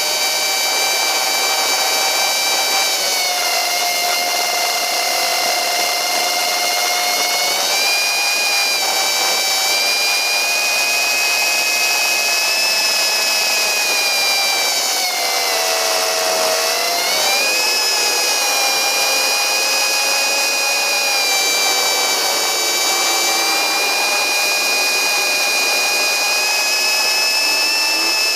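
Electric motor and pusher propeller of a small FPV model plane whining steadily, the pitch shifting up and down with the throttle, with a clear drop and climb about fifteen to seventeen seconds in.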